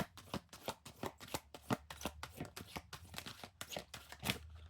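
A deck of oracle cards being shuffled by hand: a quick, irregular run of card snaps and flicks that stops just before the end.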